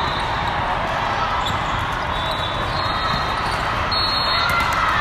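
Volleyball rally: the ball being struck and players moving on the sport court, over the steady din of a large, crowded hall. The din grows a little louder near the end.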